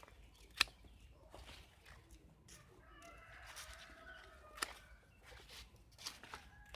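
Chickens clucking faintly in the background, with one drawn-out call around the middle. Two sharp clicks stand out, one about half a second in and another between four and five seconds in.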